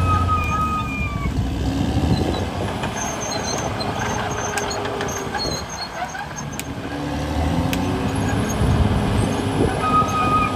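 CAT D6R crawler dozer's diesel engine running under load as the machine tracks across the dirt cut. The engine eases off about halfway, then picks up again, and a high whining tone comes and goes near the start and near the end.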